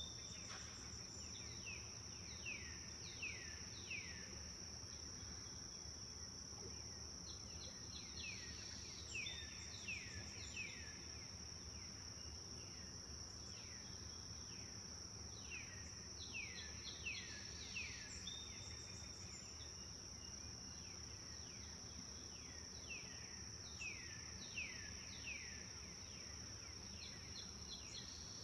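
A bird singing phrases of four to six downward-slurred notes, a phrase every seven seconds or so, over a steady high-pitched insect drone and a low outdoor hum.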